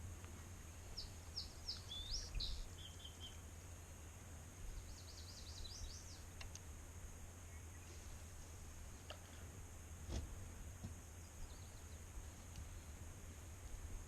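Quiet lakeside outdoor ambience with a low steady rumble. A small bird chirps in two short runs of quick high notes, the first about a second in and the second about five seconds in, with a few faint clicks later.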